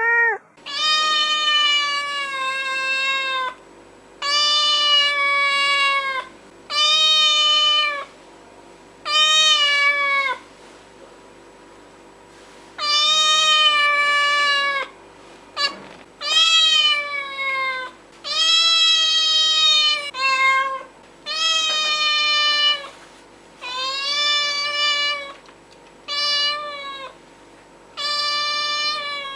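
Domestic cat meowing over and over: about a dozen long, drawn-out meows, each one to three seconds, with short pauses between them.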